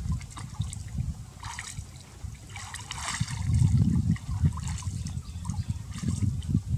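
Pond water sloshing and trickling around a person wading through it, with water running off the hands and a couple of brighter splashes near the middle.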